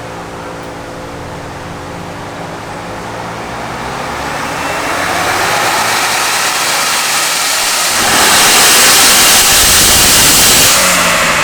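Ford Bronco with an XForce Varex valved catback exhaust under a full-throttle dyno pull. The engine and exhaust build steadily for several seconds and are loudest near the end, then the throttle is lifted and the engine winds down.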